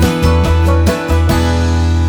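Background music: upbeat country-style tune with plucked guitar and a strong bass line.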